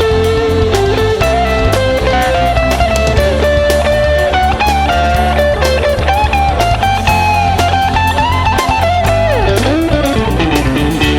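Rock-blues music: an instrumental break with a lead guitar line bending and sliding over bass and drums, with a deep pitch dip and climb back near the end.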